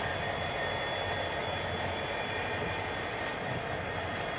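Diesel freight locomotives in CP Rail and Soo Line paint running steadily as they move slowly past, with a thin steady high tone over the rumble.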